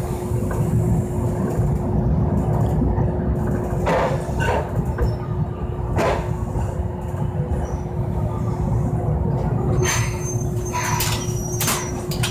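Toyohashi Railroad Mo 780 tram heard from inside as it rolls slowly into its terminus: a steady low rumble with a constant hum, a few sharp clacks, and a cluster of clacks with faint high squeals about ten seconds in as it comes to a stop.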